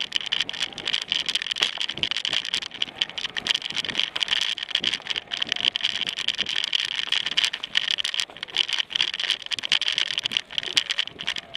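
Mountain bike rattling over a bumpy dirt forest trail: dense, irregular clattering knocks over a steady hiss.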